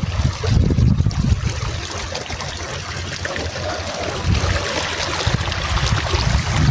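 Water trickling steadily, like a small stream, a continuous rushing hiss. Wind buffets the microphone with a low rumble, strong at the start, easing off in the middle and returning near the end.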